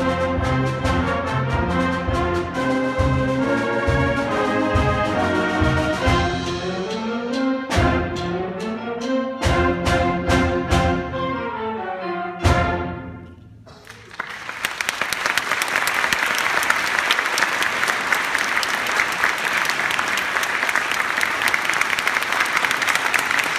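Concert band with a featured drum section playing the close of a piece: brass chords over sharp, repeated percussion hits, ending on one loud final hit about twelve seconds in that rings away. The audience then applauds for the rest.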